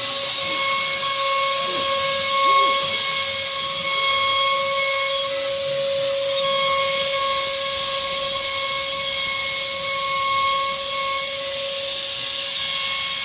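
CNC router spindle running at speed while its bit cuts grooves into a wooden board: a steady high whine with a strong hiss over it.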